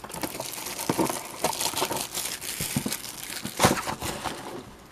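Panini Fortnite trading-card packaging crinkling and tearing as a box is opened, with dense crackles throughout and one louder snap about three and a half seconds in.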